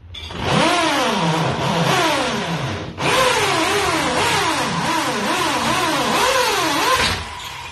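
Corded electric drill boring into the wall, its motor pitch rising and falling again and again. It stops briefly about three seconds in, then runs on and stops shortly before the end.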